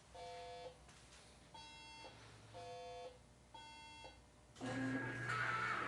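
Electronic alarm beeping from a Halloween meat-grinder prop's buzzer speaker: four short beeps about a second apart, alternating between two tones. A louder, steady sound joins near the end as the prop starts running.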